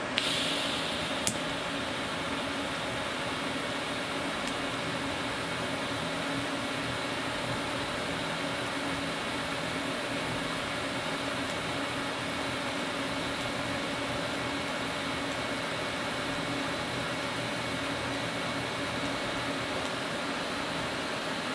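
TIG welding arc on thin sheet steel, struck with a sharp high hiss and a click in the first second or so, then burning with a steady hiss and hum while filler rod is dabbed into the puddle.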